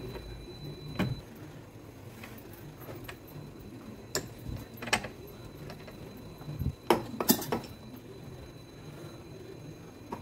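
Scattered metallic clinks and knocks as a steel tool retainer sleeve is slid onto and seated on the front barrel of a Makita HM1306 demolition hammer, the loudest cluster about seven seconds in.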